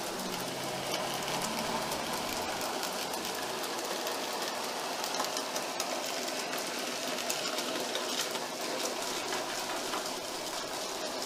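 N gauge model train, a model J39 steam locomotive hauling a long rake of vans, running along the layout track: a steady whirr from the small motor with a fine rattle of the wheels over the rails.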